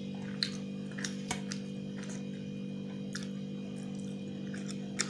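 Close-miked eating sounds of a person eating rice and fish by hand: scattered wet mouth clicks and squishes of chewing, a few sharper ones at irregular intervals, over a steady low hum.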